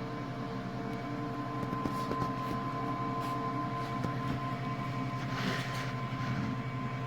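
Steady machine hum holding several fixed tones, with a few faint clicks.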